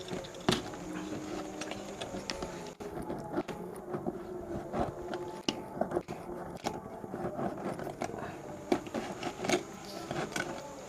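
Close handling noises: irregular clicks, taps and scrapes, several a second, over a low steady hum.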